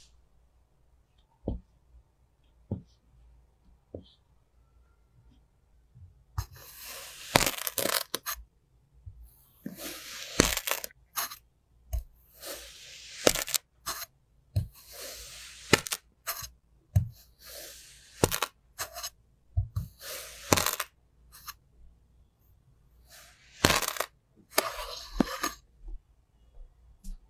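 Metal tools cutting into and pressing down on a sculpted clay face: repeated crisp crunching and crumbling scrapes with sharp clicks. The first few seconds hold only a few light taps, and the crunching starts about six seconds in.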